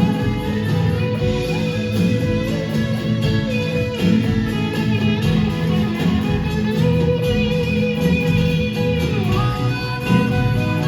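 Live rock band playing an instrumental passage: strummed acoustic and electric guitars with violin over bass and drums.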